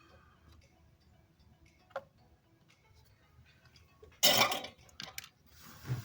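A person coughs sharply about four seconds in, followed by a smaller cough and a softer breathy sound near the end. A single light click comes about two seconds in.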